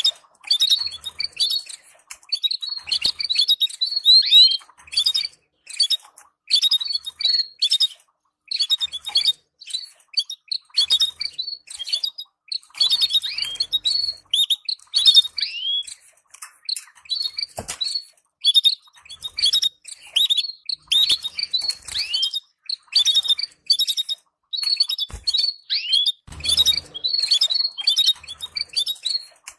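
Canaries chirping: runs of quick, high chirps and short downward-sliding notes, each run broken off by a brief pause.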